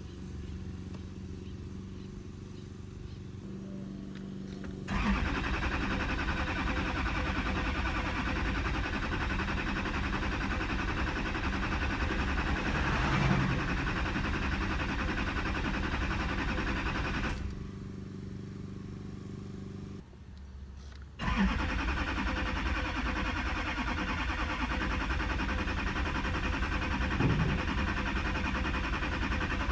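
2008 Duramax LMM 6.6-litre V8 diesel being cranked by its starter without firing, in two long spells of about twelve and eight seconds with a short break between, after a steady hum at the start. A crank-no-start: the owner finds the injectors get no signal while cranking.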